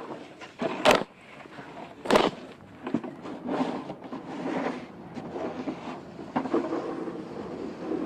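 Snow shovels and snow pushers scraping across a snowy sidewalk: two sharp scrapes about one and two seconds in, then steadier scraping with a low rumble underneath.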